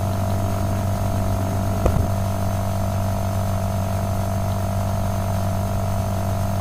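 Steady electrical hum in the recording, several fixed tones, with one short click about two seconds in.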